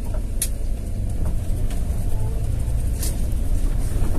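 Steady low rumble of a bus's engine and running gear heard from inside the cabin as it rolls along, with a couple of light clicks, about half a second in and again near three seconds.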